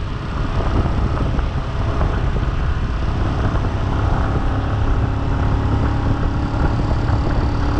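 A motorbike being ridden along a road: heavy wind noise on the microphone over steady engine and road noise.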